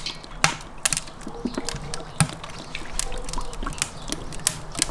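Sunflower oil pouring and glugging from a plastic bottle into a kazan cauldron, with sharp crackles scattered through from the wood fire burning beneath it.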